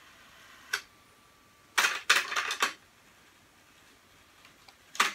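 Mechanical clicks and clunks from a Pioneer CT-W205R double cassette deck as its transport buttons are pressed and the mechanism engages: one click about a second in, a quick clatter of several clicks around two seconds in, and another click near the end.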